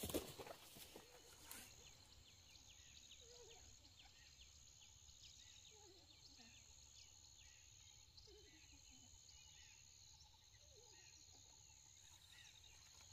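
Near silence: faint outdoor mountain ambience. An insect's faint high-pitched trill repeats in phrases about a second long, with a few faint low falling calls.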